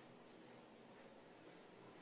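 Faint scratching of a 2B graphite pencil drawing short strokes on paper, over near-silent room tone.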